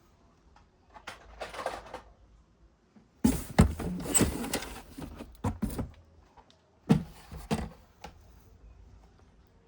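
Toys and packaging being handled in three bursts of clicks, knocks and rustling, the loudest and longest a few seconds in, with quiet pauses between.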